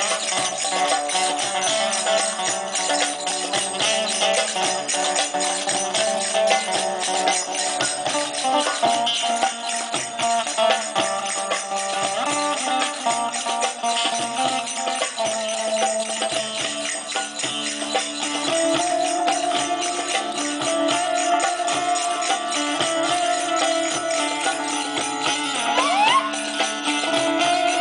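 Live band music: a steady beat of percussion with jingling, under a sustained melodic line, with a few sliding notes near the end.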